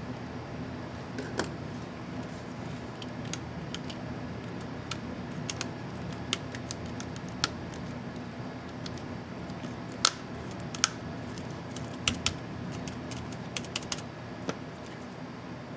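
Irregular sharp clicks of an Acer Aspire M5-581T laptop's keys and keycaps being pressed, over a steady low hum.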